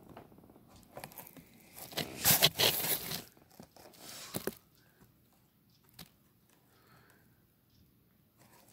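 Cardboard-and-plastic blister packaging of a Beyblade top handled, scraping and crinkling. There is a loud burst about two to three seconds in and a shorter one at about four seconds, with a few faint clicks after.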